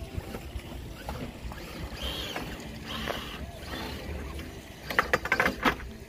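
Wind buffeting the microphone in a steady low rumble, with a quick run of sharp clicks and knocks near the end.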